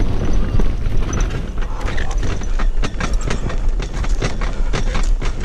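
Irregular clicks and knocks, coming thicker in the second half, over a low rumble: a hang glider's frame and camera mount rattling as it is handled on the ground.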